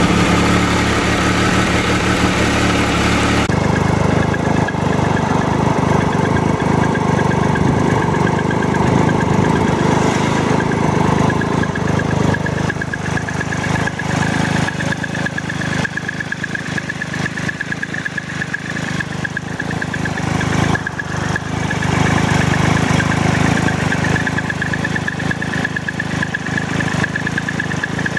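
Triumph Tiger Explorer's three-cylinder engine running with a rattling noise, a fault the owner means to have the dealer sort out. Its sound changes about three seconds in.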